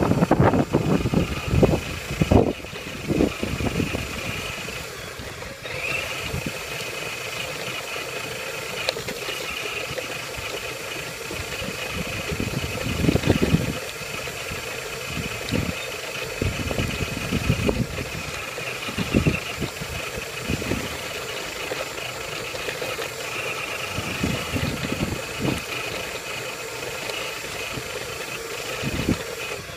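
Axial SCX10 RC rock crawler driving: a steady whine from its electric motor and geartrain, with irregular low thumps and rattles as the chassis bumps over the ground.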